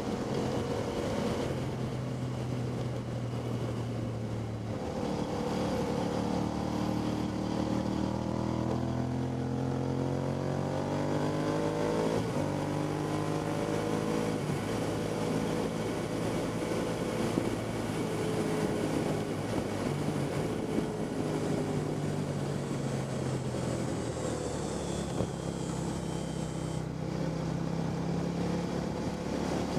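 Motorcycle engine at speed on a racetrack, its pitch climbing under acceleration and then easing off, with wind rushing over the onboard microphone.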